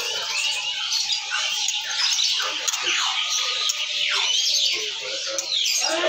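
Many caged songbirds chirping and whistling at once: a dense, overlapping chorus of short quick notes and downward-sliding whistles.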